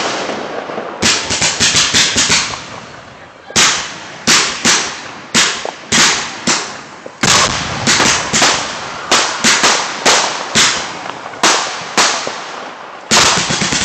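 Aerial fireworks launching and bursting in a rapid, irregular string of sharp bangs, often several within a second, each ringing out briefly. There is a short lull about three seconds in.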